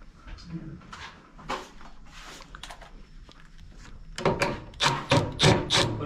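Handling noise from a fan coil unit's blower motor and its mounting parts: light clicks and knocks, then a quick run of loud scraping, rubbing strokes from about four seconds in.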